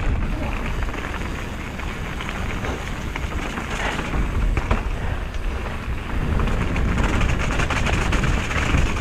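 Mountain bike descending a dirt trail: tyres rolling over rough ground with a continuous clatter of small clicks and rattles from the bike, under heavy wind rumble on the microphone.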